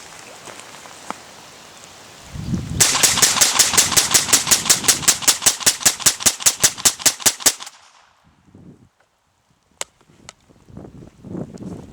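Ruger .22 LR semi-automatic rifle fed from a 25-round BX-25 magazine, fired in a rapid, evenly paced string of about two dozen shots lasting some five seconds, then stopping suddenly.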